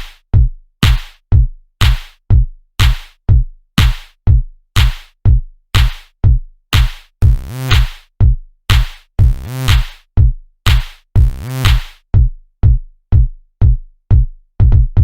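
Electronic background music: a sparse drum-machine beat, about two hits a second, each dying away before the next.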